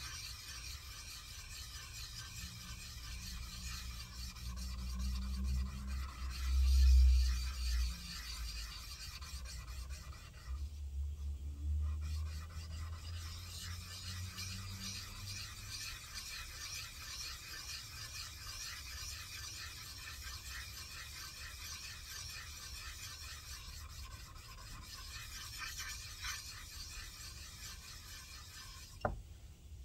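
Steel vise jaw rubbed in circles on a diamond flattening stone: a steady gritty scraping of metal on abrasive as the jaw face is lapped flat, with a brief pause about a third of the way in. A low rumble, loudest about a quarter of the way in, runs under it.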